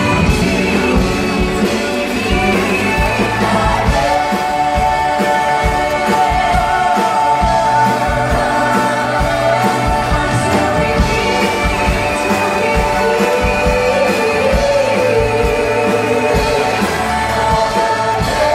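Singers on microphones sing a song over an amplified live band with drums and electric guitar.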